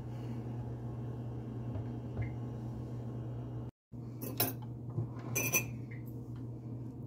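A steady low hum runs under everything, with a brief break in the sound about four seconds in. Then a glass mixing bowl and spoon clink and knock a few times, the loudest near the middle, as batter is poured from the bowl into a paper-lined loaf tin.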